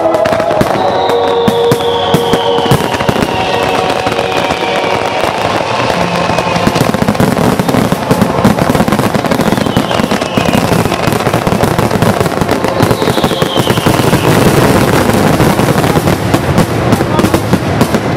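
Fireworks barrage: many shells bursting in quick succession, with dense crackling and bangs. A few falling whistles sound over the bursts.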